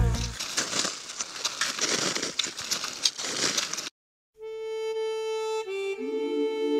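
Soundtrack music: a rock track breaks off at the start into about four seconds of irregular rushing noise, then after a short dead gap a harmonica begins playing held notes and chords, shifting pitch a few times.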